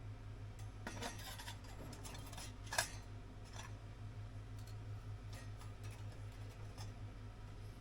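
A few light metallic clicks and clinks, like small metal gear being handled, the loudest about three seconds in with a short ring, over a steady low hum.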